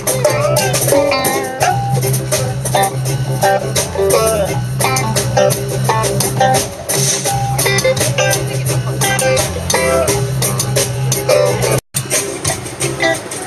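Live band playing: plucked upright double bass and guitar over a small drum kit, a busy run of quick notes. The sound cuts out for an instant near the end.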